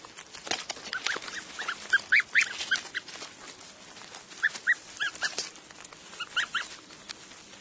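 Goslings cheeping: short, high, rising-and-falling peeps in quick clusters, over light clicks and rustling.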